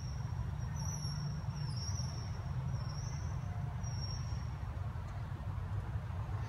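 Steady low outdoor rumble, with a thin high whistling tone that wavers on and off during the first four seconds.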